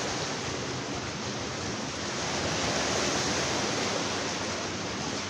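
Sea surf washing on the shore: a steady rush of waves that swells slightly midway.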